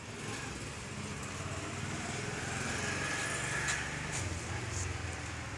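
A small vehicle engine running steadily at low revs, growing a little louder toward the middle.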